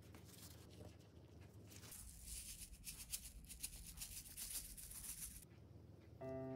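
Hand-held sesame seed grinder turned over a plate, a fast, dense crackle lasting about three seconds that stops suddenly, after a few light handling clicks. Piano music starts just at the end.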